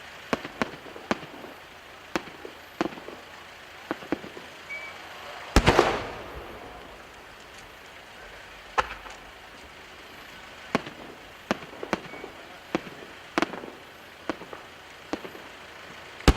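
Large 10-gou aerial firework shells: scattered sharp cracks and pops, with two much louder booms, one about five seconds in and one at the very end, each followed by a rolling echo.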